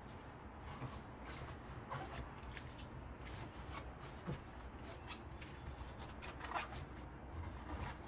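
A cloth in a rubber-gloved hand wiping the inside of a front-loading washing machine's steel drum: irregular rubbing and scuffing, with a couple of short squeaks.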